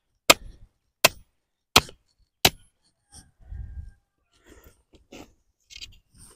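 A hammer driving a wooden tomato stake into the soil: four sharp, evenly spaced blows about 0.7 s apart. After that come softer scuffs and rustling and a dull thud as he moves along the row.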